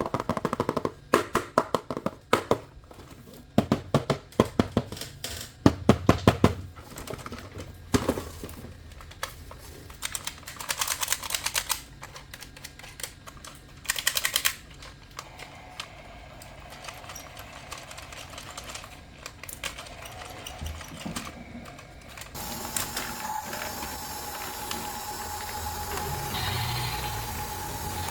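Plastic toy vehicles and their packaging being handled: a string of clicks and knocks, some in quick runs, then a steady hum with a held tone from about three-quarters of the way through.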